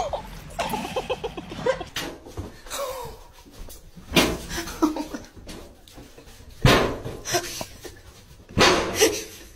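A small dog making loud, short sounds, three times: about four, seven and nine seconds in.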